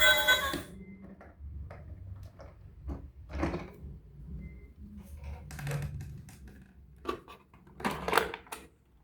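A tune cuts off just after the start. Then come scattered light clicks, knocks and short scrapes of small objects being handled, with two louder scrapes, one about three and a half seconds in and one around eight seconds.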